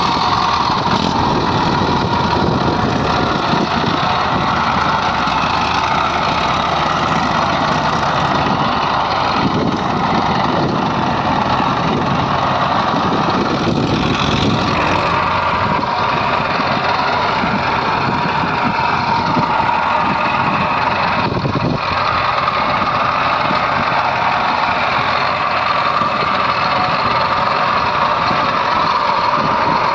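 Heavy diesel engine running steadily and loudly, with the low end of its note shifting up and down slightly.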